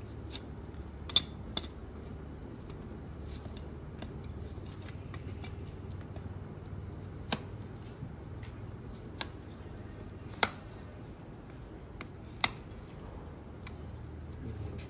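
Farrier's long-handled pincers gripping and levering at a horse's shoe and its nails: a handful of sharp metal clicks and snaps at irregular intervals, over a steady low hum.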